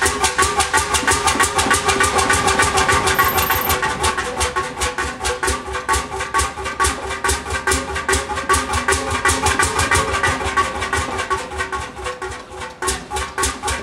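A large engine running at a steady speed, its strokes beating evenly several times a second over a steady ringing tone.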